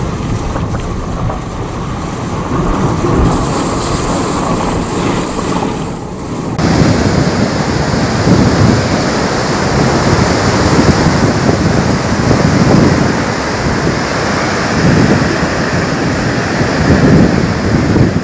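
Loud rushing of flash-flood water, with wind buffeting the microphone. The sound changes abruptly twice, about 3 and 6.5 seconds in, and is louder and fuller after the second change.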